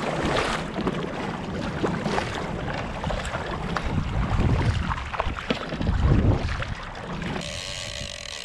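Paddle strokes and water sloshing against a fishing kayak on choppy sea, with wind rumbling on the microphone in uneven gusts. The loudest surge comes about six seconds in, and near the end the sound settles to a quieter, steadier hiss.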